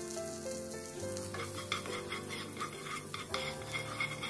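Butter and oil sizzling gently in a nonstick frying pan. From a little after a second in, a wooden spatula stirs and scrapes across the pan in short strokes.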